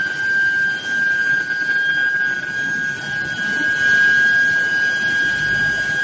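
Steady high-pitched whine from the induction heating coils of a steel billet reheating line, over a low uneven rumble from the roller-conveyor drive motors.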